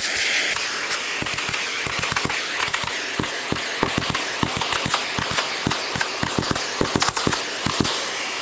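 Workshop vacuum sucking loose debris out of the cracks of an oak platter through a hose nozzle: a steady rushing suction with a thin high whine, broken by many irregular sharp clicks as bits rattle up into the hose.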